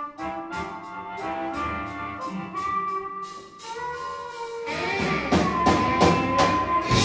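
Live electric blues band playing a slow blues with two electric guitars, drums and harmonica. Cymbal ticks keep a steady beat, the band grows louder with bending held notes from about five seconds in, and a cymbal crash comes near the end.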